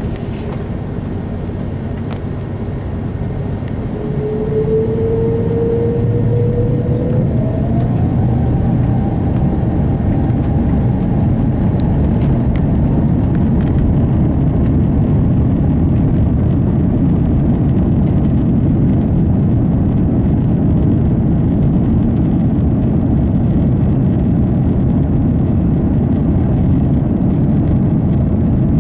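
Airbus A330-200's Rolls-Royce Trent 700 jet engines spooling up to takeoff thrust. About four seconds in, a whine starts, rises and steps up in pitch, and it grows louder. After that comes a steady jet roar with runway rumble during the takeoff roll.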